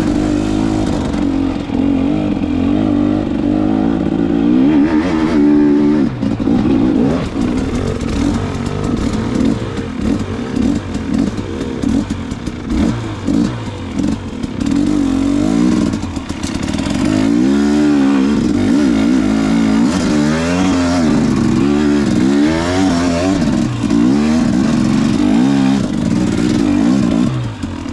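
KTM dirt bike engine revving hard off-road, its pitch rising and falling over and over with the throttle, with knocks and rattles from the bike over rough ground.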